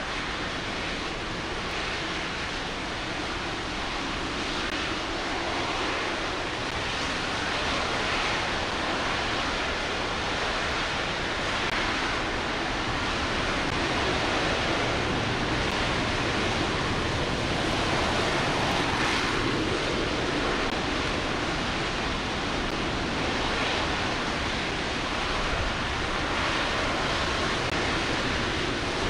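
RS-25 liquid-hydrogen/liquid-oxygen rocket engine firing steadily during a static hot-fire test: a continuous, even rushing noise with no change in pitch, growing slightly louder over the span.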